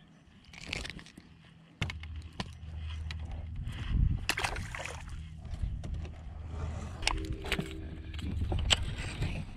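A small motor on a bass boat starts suddenly about two seconds in and runs with a steady low hum, under sharp clicks and knocks from the fish and tackle being handled on the deck.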